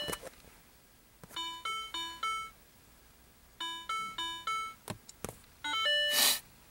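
Short runs of electronic chime tones, each a quick sequence of clear stepped notes. Two runs of four notes come about two seconds apart, and another run near the end overlaps a brief burst of rushing noise.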